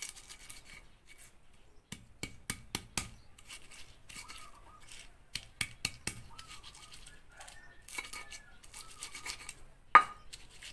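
Stone pestle grinding chillies, shallots and tomatoes into a spice paste in a stone mortar (ulekan and cobek): stone scraping and knocking on stone, with a quick run of knocks about two seconds in and one loud knock near the end.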